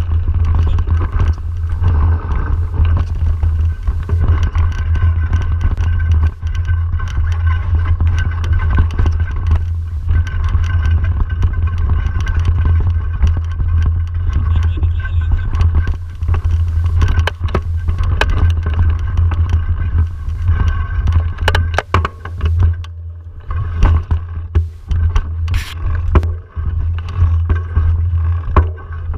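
Mountain bike riding down a dirt singletrack: heavy wind rumble on the microphone over tyres rolling on dirt and stones, with sharp clicks and rattles from the bike over bumps. The noise eases briefly a few times about three-quarters through as the bike slows.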